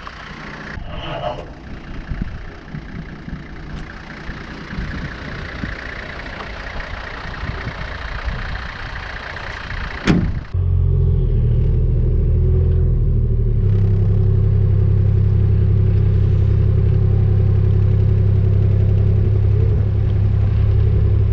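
An engine running steadily and loud, starting abruptly after a sharp click about ten seconds in, with a slight change in its pitch a few seconds later. Before it there is a lighter, uneven mechanical noise.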